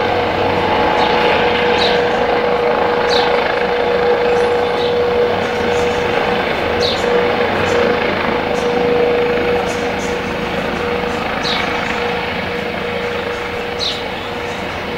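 Police helicopter flying overhead: a steady rotor and turbine drone with a constant whine, easing off slightly near the end as it moves away.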